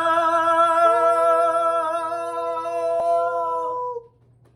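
A woman's voice holding one long note at a steady pitch. A second, slightly higher note joins in about a second in. The note stops about four seconds in.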